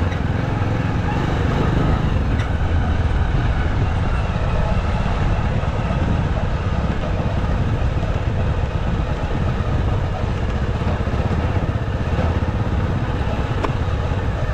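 Motorcycle engine running steadily while being ridden along a road.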